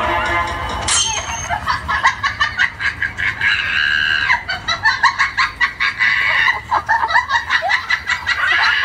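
A rapid run of short, high clucking calls like chickens, starting about a second in and going on in quick strings.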